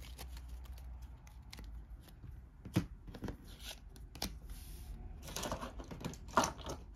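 A stack of game cards being handled, rustling against each other, with a few sharp light taps and a denser patch of rustling as the cards are set down on a wooden table near the end.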